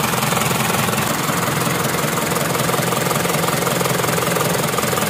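Isuzu Elf 4HG1 four-cylinder diesel engine idling steadily, running evenly with its misfire gone after the injector work.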